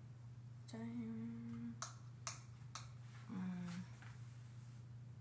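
A woman humming "hmm" twice while thinking, a held note about a second long and then a shorter one, with three sharp clicks about half a second apart in between. A steady low electrical hum runs underneath.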